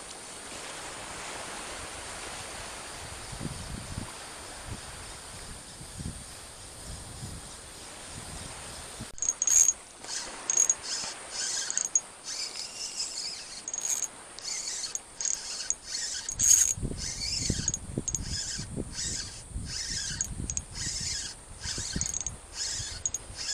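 Spinning reel's drag clicking in rapid, high-pitched bursts as a hooked trevally takes line on a fast run, starting sharply about nine seconds in. Before that, a steady soft hiss with a few low thumps.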